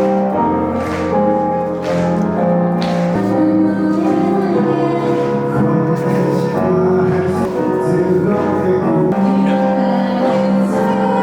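Music: a song with sustained chords and some singing, with light percussive hits about once a second in the first few seconds.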